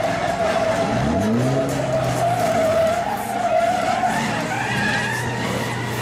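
Racing truck's diesel engine revving up sharply about a second in and held high, while its rear tyres spin and skid on wet asphalt as it drifts in circles, with a wavering tyre squeal.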